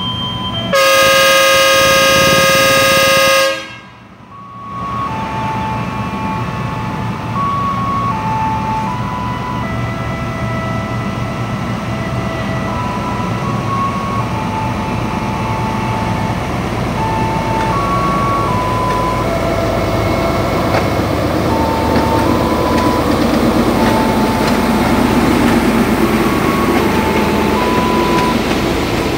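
Diesel locomotive's air horn gives one long, loud blast of about three seconds, a second in. Afterwards the engine runs and the train starts pulling away, its rumble building over the second half. A simple tune of short high notes plays throughout.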